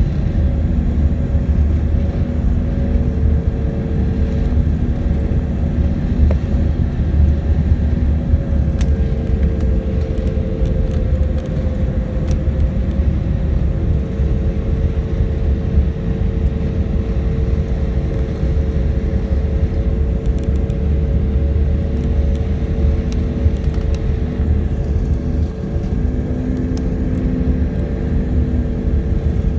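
Steady cabin noise of an airliner on final approach to landing, heard from inside the cabin: a low rumble of engines and rushing air with a few steady engine hums that shift slightly in pitch partway through.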